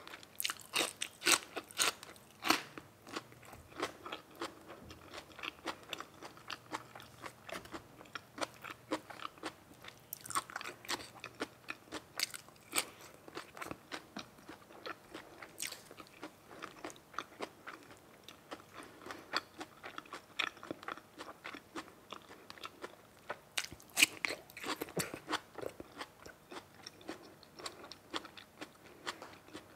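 A person chewing and crunching food at close range: a steady run of crisp bites and mouth clicks that comes in thicker clusters near the start, about a third of the way in, and again about four-fifths of the way through.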